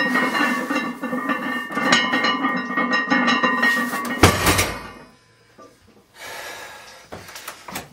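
Loaded trap bar's weight plates clanking and ringing with metallic clinks during deadlift reps, then the bar set down on the floor with one heavy thud about four seconds in.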